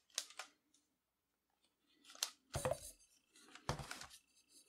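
Ice cubes clinking and shifting in a plastic bowl as it is handled and set down on a table: a few faint clicks, then two louder short clatters about halfway through and near the end.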